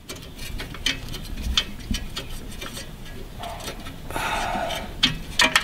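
Scattered light metallic clicks and taps of a bolt and suspension parts being handled by hand at a car's front hub, with a short cluster of sharper clicks near the end.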